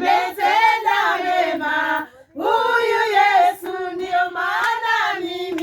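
A group of voices singing together, women's voices most prominent, with a short break about two seconds in.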